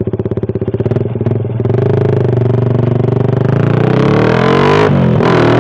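Suzuki Satria FU's 150 cc single-cylinder four-stroke engine running through an aftermarket DOS muffler. It pulses at low revs, then pulls away with the revs climbing and the exhaust getting louder. The revs dip briefly near the end, then climb again.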